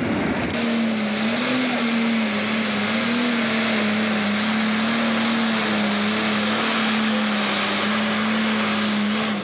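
Pro Stock pulling tractor's turbocharged diesel engine running flat out under load while pulling the sled. It is a loud, steady high engine note that comes in about half a second in and holds without a break.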